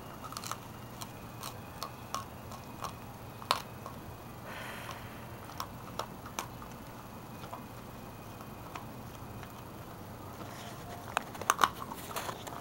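Pitbull puppy chewing a dried pig ear: scattered sharp crunches and clicks every second or so, bunching into a quicker run of louder crunches near the end.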